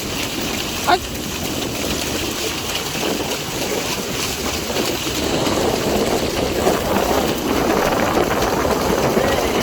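Beach ambience: a steady wash of sea surf and wind on the microphone, with indistinct voices that grow louder about halfway through. A brief sharp sound stands out about a second in.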